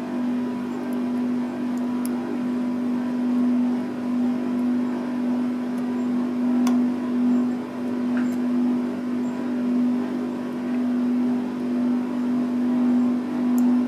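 A steady low hum carries through, with a few faint sharp clicks scattered over it, seconds apart. The clicks are from a lock pick working the pins of a 73 mm round padlock (puck lock).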